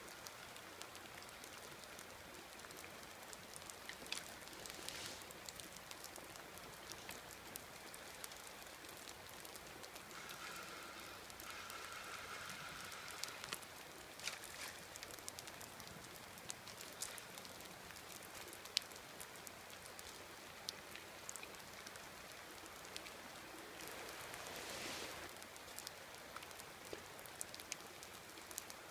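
Rain falling, a steady hiss with scattered close drops clicking. A faint held tone sounds for a few seconds about ten seconds in.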